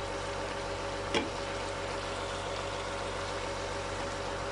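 Chicken pieces with tomato and garlic-ginger paste frying in oil in a karahi: a steady sizzle, with one clink of the metal slotted spoon against the pan about a second in.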